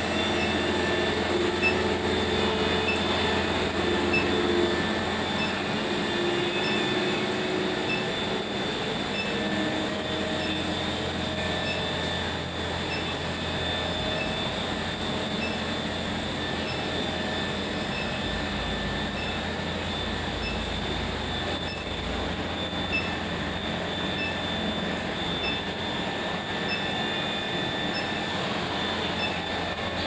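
A 70 kW induction melting furnace running under power on test. A steady high-pitched whine sits over a constant low hum.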